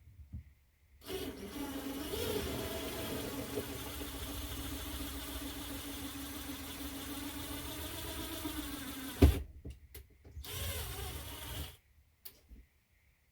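Power drill boring a hole through tile, running steadily for about eight seconds with a sharp knock at the end, then a second short burst of drilling.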